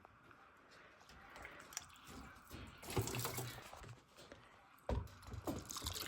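Water poured from a jug through a rabbit cage, trickling and dripping into a water cup. A few knocks come near the end.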